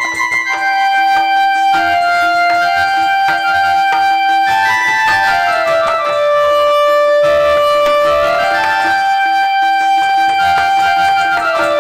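Instrumental folk music: a melody instrument plays long held notes in phrases that step down in pitch, over a steady drone note, with a barrel drum played underneath.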